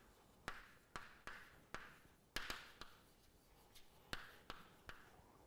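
Chalk writing on a chalkboard: faint sharp taps as the chalk meets the board, each followed by a short scratch of the stroke, about two a second.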